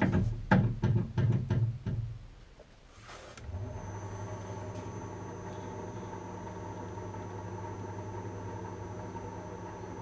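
A few loud clunks in the first two seconds, then a metal lathe starts up about three and a half seconds in and runs steadily with a low, even hum.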